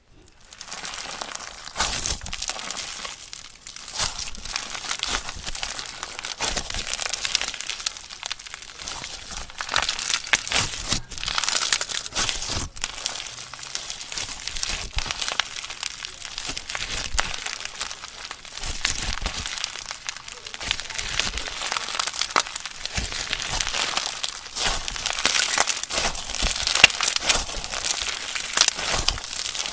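Crunchy slime being squeezed and kneaded, giving a steady run of dense crackling and popping that swells and eases every few seconds.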